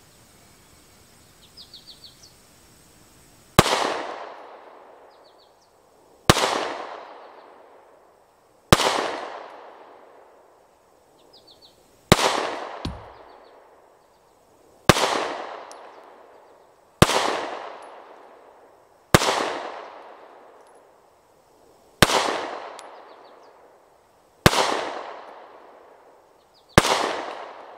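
SIG P365 9mm pistol firing ten slow, aimed single shots, about two to three seconds apart. Each shot rings out with a fading echo.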